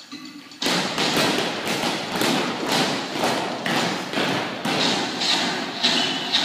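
A group of dancers' feet stepping and stamping on a wooden floor in a steady rhythm, about two steps a second, starting about half a second in.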